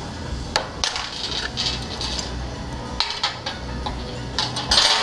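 Metal hand wrenches clinking and clattering against one another and the bolts in irregular clusters, loudest near the end.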